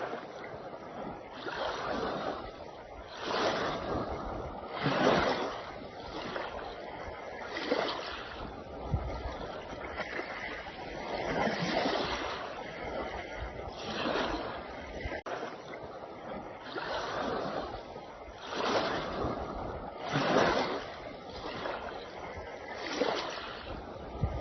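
Small waves washing against a shore, a surge of rushing water every one to two seconds.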